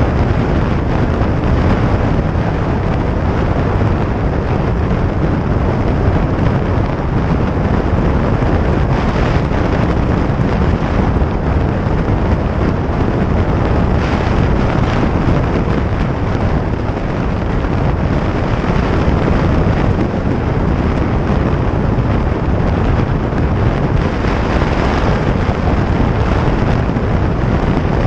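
Heavy wind buffeting the microphone over the engine and road noise of a 2017 Harley-Davidson Sportster 883 Iron's air-cooled V-twin, cruising at highway speed. Loud and steady throughout, with no gear changes or breaks.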